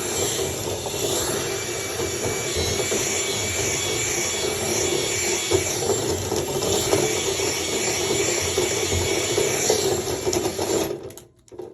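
Vacuum running steadily while drawing lint out of a dryer vent, then switched off near the end, where the noise drops away sharply.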